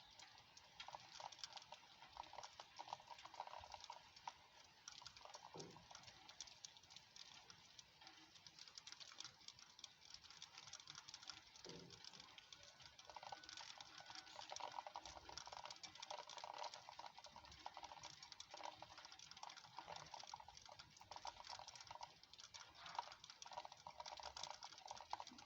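Light rain pattering as dense, irregular small drop ticks, faint and steady throughout.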